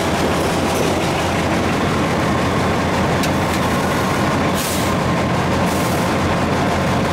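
Cab sound of an Alco WDM3A diesel-electric locomotive under way: its 16-cylinder ALCO 251 diesel engine running with a steady low throb over the rumble of wheels on rail. Two short hisses come in the second half.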